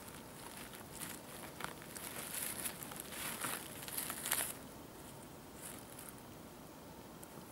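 Dry leaf litter and forest-floor debris crackling and rustling close by as a hand twists a porcino mushroom loose and pulls it from the ground; the crackling is loudest about four seconds in, then stops.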